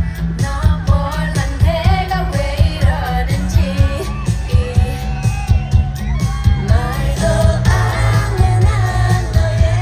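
Live K-pop song played loud over a stadium sound system: sung vocals over a heavy, steady beat.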